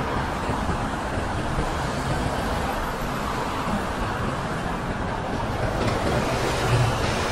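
Steady road traffic noise of cars and buses passing close on a busy city street, a little louder near the end as a double-decker bus goes by.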